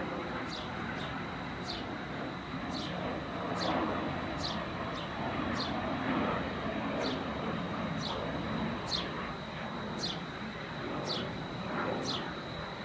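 Distant jet noise from a Bombardier Challenger 300 business jet's engines climbing away overhead, a steady rush that swells and fades a little. Over it a small bird chirps repeatedly, short falling notes about twice a second.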